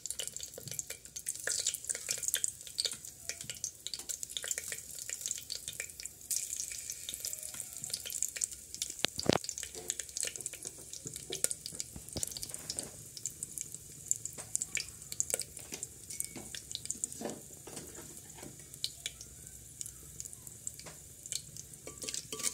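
Whole spices, a bay leaf among them, sizzling and crackling in hot oil in an aluminium pressure cooker: the tempering stage, where the spices splutter in the oil. One louder crack comes about nine seconds in.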